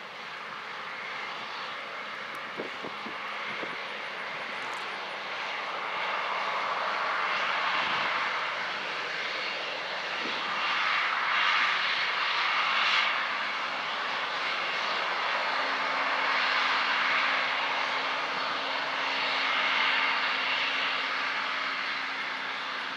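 Combine harvester running: a steady rushing mechanical noise that swells and eases twice, with a low steady hum joining about halfway through.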